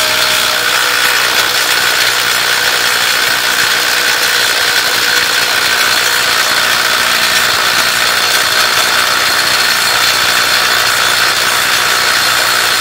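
Cordless impact wrench hammering steadily on a ball-joint press screw, trying to force out a heated, seized ball joint that will not budge.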